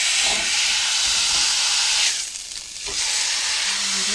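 Boneless chuck roast searing in hot cooking oil in a skillet: a steady sizzle as the meat hits the pan. It drops away briefly a little over two seconds in, then comes back.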